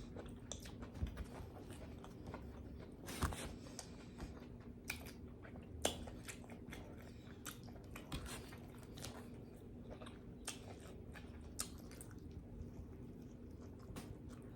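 Close-miked mouth sounds of a person eating pizza: faint chewing with irregular wet smacking clicks, a few a little louder about three and six seconds in.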